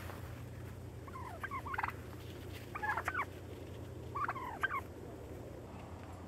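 Domestic tom turkeys gobbling while strutting in display: three short rattling gobbles, about a second and a half apart.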